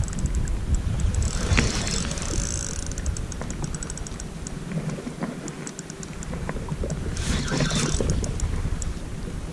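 Wind buffeting the microphone with a low rumble, under fine rapid ticking from a spinning reel as slack line is wound in. There are two short swishes from the eging rod being jerked to work the squid jig, about a second and a half in and again about seven seconds in.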